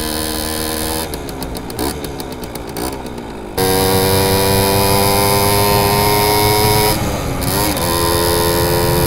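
Simson S51 moped's two-stroke single-cylinder engine under way on the ride, the revs climbing steadily as it pulls through a gear. About seven seconds in the revs dip briefly at a gear change, then run on steady.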